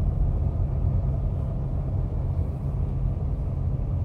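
Steady low rumble of a Chevrolet Camaro's engine and tyres, heard from inside the cabin as the car drives slowly on a snow-covered road.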